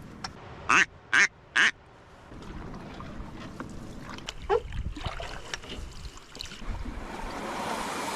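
Three short, loud duck quacks in quick succession about a second in, then a fainter call, over a background of paddle and water noise that grows toward the end.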